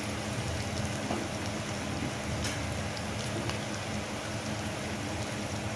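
Sliced onions and chopped green chillies sizzling steadily in hot oil in a kadhai, with a few faint crackles.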